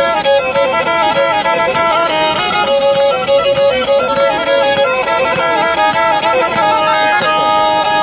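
Three-string Black Sea kemençe bowed in a fast run of short notes. Near the end the quick notes give way to steady held tones.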